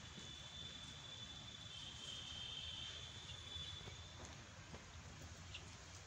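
A steady high-pitched insect trill that holds for about four seconds and then stops, over a faint low rumble.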